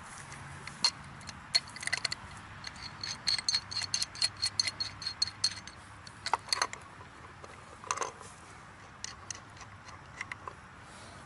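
Metal hand tools clicking and clinking on the fitting where the drop pipe joins an old submersible well pump while it is being loosened. A quick run of metallic clicks, about five a second, comes about three to five seconds in, and a couple of louder knocks follow later.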